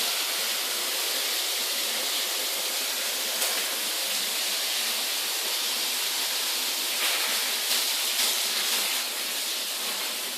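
Water jet spraying with a steady hiss during an air-conditioner chemical wash, swelling briefly a few times.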